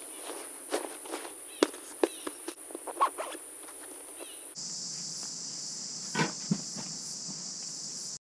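Steady high-pitched insect drone with scattered rustles, clicks and knocks as a rolled canvas swag is pushed into its canvas bag and handled. About halfway through, the drone shifts to a lower pitch, and a couple of thumps follow near the end.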